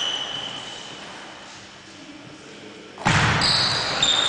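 Table tennis rally in a large, echoing hall. One short ball ping is heard at the start, then a lull. About three seconds in, a loud burst of play begins: quick pinging hits of the ball against the bats and table.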